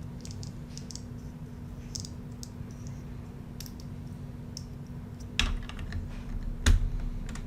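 Small plastic Lego pieces clicking and rattling as they are picked through by hand, with two louder knocks about five and a half and nearly seven seconds in. A steady low hum runs underneath.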